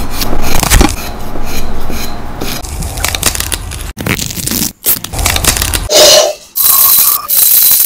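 Food-preparation sounds in a string of short edited clips: scraping and rubbing of utensils and food, broken by abrupt cuts, with a loud hiss in the last second.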